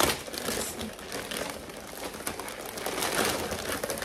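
Gift wrap and tissue paper rustling and crinkling as a present is unwrapped by hand.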